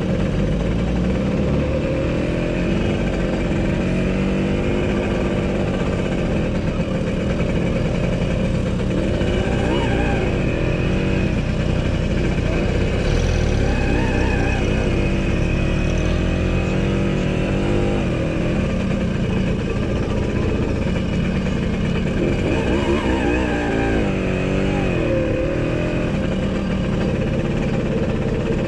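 Classic car engines running steadily, with an engine revved several times, its pitch rising and falling.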